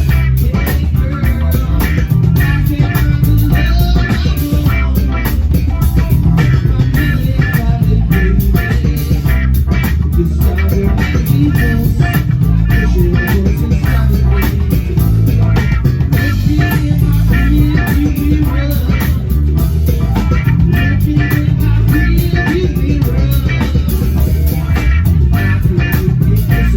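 Rock music with electric guitar, bass guitar and drums, playing steadily throughout.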